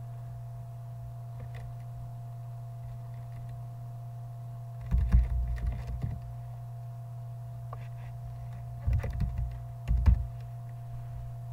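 Computer keyboard typing in short bursts, about five seconds in and again twice around nine to ten seconds, over a steady low electrical hum.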